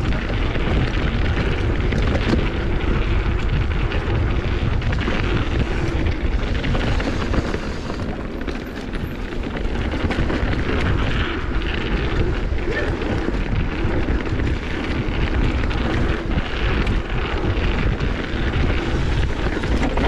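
Wind buffeting the camera microphone during a fast mountain bike descent, mixed with tyres rolling over a dirt trail: a steady rushing noise, heaviest in the low end.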